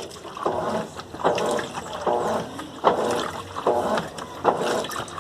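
Colormaq LCA11 top-loading washing machine agitating a load of towels and bedding in water. Its motor hums in a regular beat, a little more than once a second, with each back-and-forth stroke of the agitator, over sloshing water.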